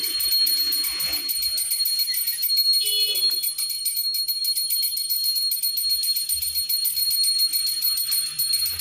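Puja hand bell rung rapidly and without pause, a high, steady ringing.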